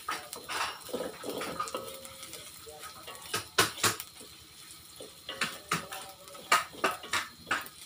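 Wooden spatula scraping and knocking against a steel wok while stir-frying spices. Sharp knocks come in quick runs through the second half.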